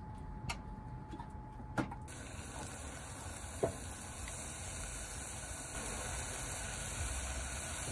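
A few sharp taps, then, about two seconds in, a steady sizzle of vegetables sautéing in olive oil in a pan, which cuts off abruptly at the end.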